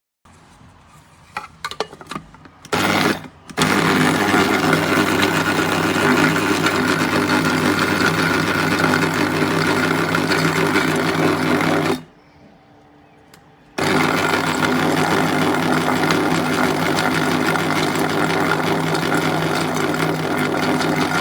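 Electric blade coffee grinder's 300 W motor running with a steady whir: a short blip after a few clicks, then two long runs of about eight seconds each with a brief stop between them.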